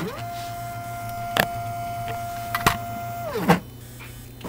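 Nema 34 stepper motors on a test bench, whining at a steady pitch after ramping up, then winding down in pitch and stopping about three and a half seconds in. Two sharp clicks come in the middle, and a low electrical hum runs underneath.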